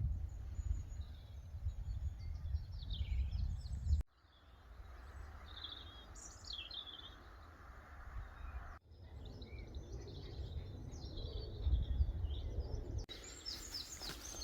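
Outdoor ambience of birds calling with short chirps over a low rumble, broken by abrupt cuts about four, nine and thirteen seconds in.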